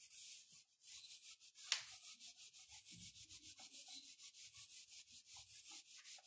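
Marker pen rubbing across a whiteboard in quick, even strokes as words are written, with one sharp tap a little under two seconds in.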